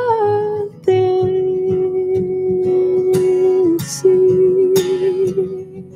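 A woman singing two long held notes over plucked acoustic guitar: the first from about a second in, the second after a brief break near four seconds.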